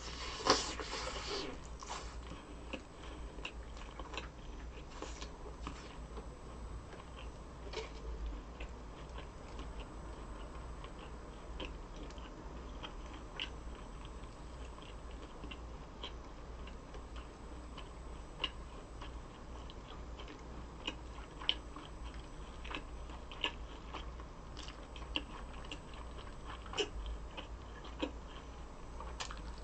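Close-miked chewing of a chewy sausage and rice-cake skewer (sotteok): a bite about half a second in, then continuous chewing with small wet clicks and smacks.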